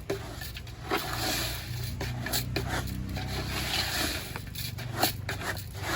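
Cooking sounds at a pot of pilau rice: irregular scrapes and taps over a steady low rumble.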